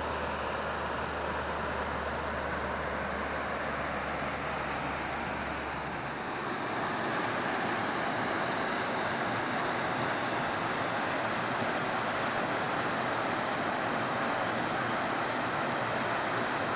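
Steady rush of falling water from a mountain waterfall. A low rumble underneath drops out about six seconds in.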